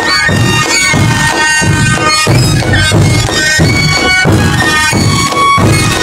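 A roncadora band: several players each blow a long three-hole cane pipe with one hand and beat a large rope-laced double-headed drum with a padded beater with the other. The pipes play a high melody together over a steady drumbeat about twice a second.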